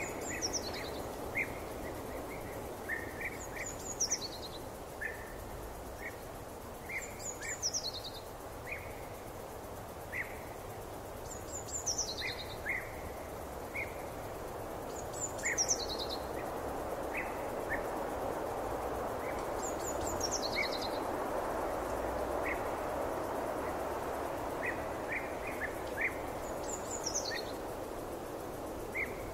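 Forest ambience: a steady wash of background noise with a bird's short call sliding down in pitch, repeated seven times a few seconds apart, and scattered brief chirps lower down.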